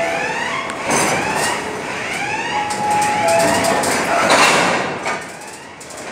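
Steel coal wagon rolling slowly into a wagon tippler, its wheels squealing and knocking on the rails, over a warning siren that gives a rising whoop about twice a second. A short burst of hissing comes about four seconds in.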